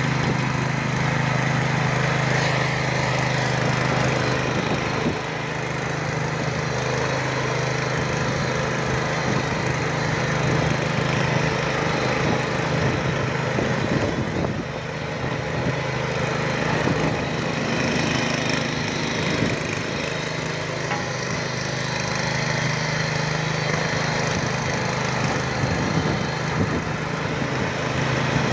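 Petrol walk-behind rotary tiller running steadily under load: the small engine's constant drone, with a dense crackling of the tines churning through the soil.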